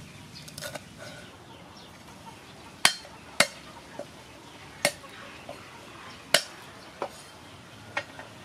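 A cleaver striking a thick round wooden chopping board: about nine sharp chops at an uneven pace, starting about three seconds in.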